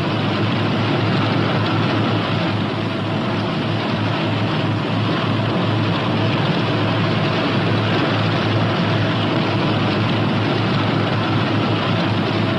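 Northrop P-61 Black Widow's twin Pratt & Whitney R-2800 radial engines running at taxiing power, a steady low drone.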